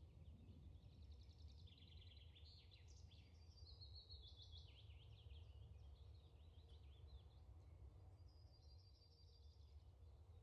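Faint birdsong: runs of quick, trilled chirps over a low steady hum, near silence otherwise, with a last short trill about eight seconds in.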